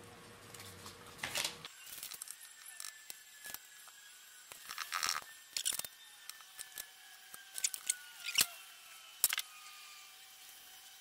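Card paper being handled, folded and glued by hand: scattered soft rustles, crinkles and small clicks.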